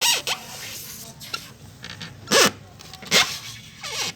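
Kittens mewing: a few short, high calls about a second apart.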